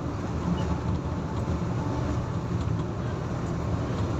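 Bus engine and tyre noise as a steady low rumble, heard from inside the moving bus.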